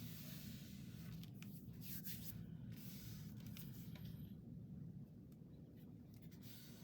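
Faint rubbing and rustling of paper and fabric being handled and pressed down, with a few light ticks, dying away about four seconds in, over a steady low room hum.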